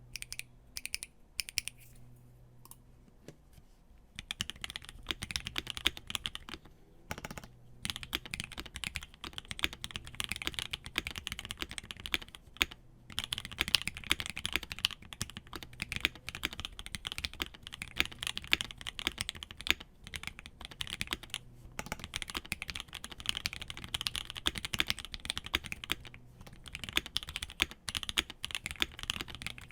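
Typing on a KBDFans KBD67 Lite R3 mechanical keyboard with lubed and filmed Gateron Yellow Cap V2 linear switches on a brass plate under GMK keycaps: a poppy keystroke sound. A few lone keystrokes at first, then steady fast typing from about four seconds in, with short pauses.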